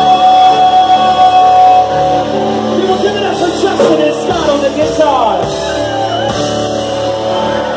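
Live rock band playing loud, with electric bass, keyboard and drums under a voice. A long held note gives way about two seconds in to sliding, wavering pitches.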